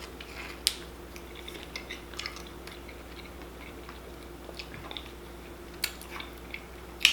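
A person chewing and biting food close to the microphone, with scattered sharp mouth clicks and smacks. The loudest smack comes near the end.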